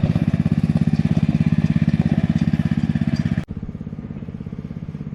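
A small engine running at a steady idle, a rapid even putter. It drops suddenly to a quieter level about three and a half seconds in.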